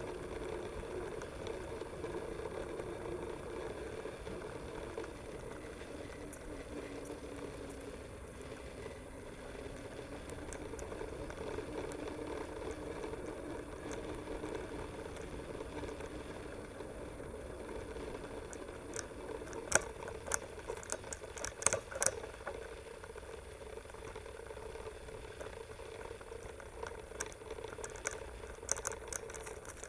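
Mountain bike rolling along a path, heard through a camera mounted on the bike: a steady rolling hum with a wavering low tone. Clusters of sharp clicks and rattles come about two-thirds of the way through and again near the end.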